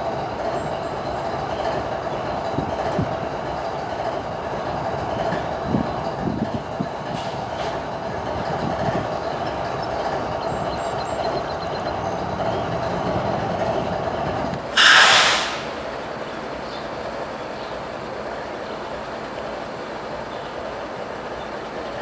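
GE ES44-series diesel-electric locomotive (GEVO-12 engine) idling while tied down, a steady hum. About two-thirds of the way through comes one brief loud hiss.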